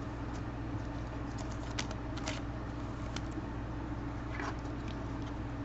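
A few faint, light clicks and rustles of trading cards and their plastic holders being handled, over a steady low electrical hum.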